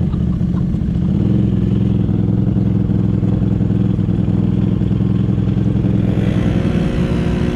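Tracked ATV engines running steadily close by. About six seconds in, a second engine comes in with a rising pitch and then holds steady.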